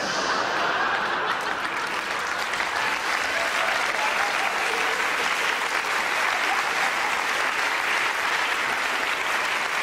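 Live audience applauding steadily in response to a comedian's punchline.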